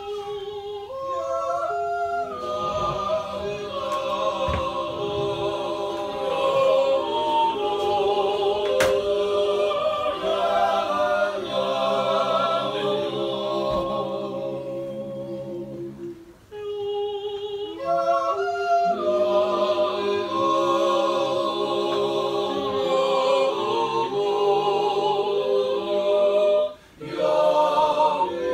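Appenzell men's choir singing a cappella: slow, sustained chords under a high lead voice. The singing comes in long phrases, with a short breath break about 16 seconds in and another near the end.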